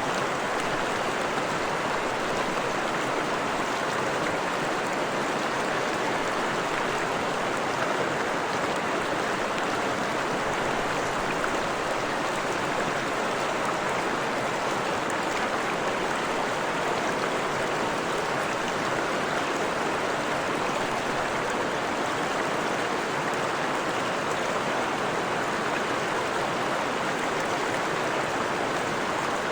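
Forest stream running over rocks: a steady, even rush and babble of flowing water.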